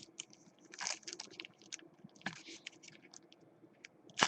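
Trading cards and foil pack wrappers being handled: faint, irregular crinkles and clicks, with a few louder rustles about a second in and just past two seconds.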